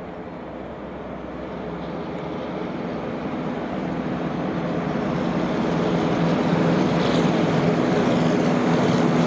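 Engine of an old cab-over rigid truck approaching at road speed, its steady note and tyre noise growing steadily louder until it is close by near the end.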